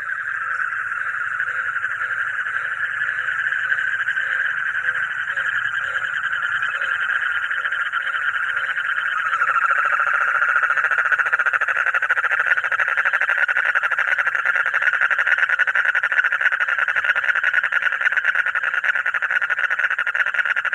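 A frog calling in one continuous rapid trill, growing a little louder about ten seconds in.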